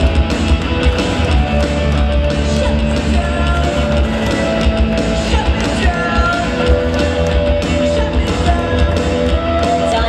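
Live rock band playing loudly: amplified electric bass and guitar with singing into microphones.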